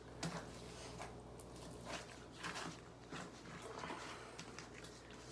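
Faint squelching and soft sticky clicks of thick homemade slime being kneaded and pulled by hand in a bucket.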